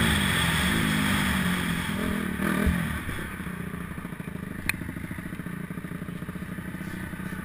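Honda 250R motocross bike engine heard close up, running steadily, then dropping to a lower, quieter rapid burble about three seconds in as the rider eases off the throttle. A low thump comes just before the drop and a sharp click about halfway through.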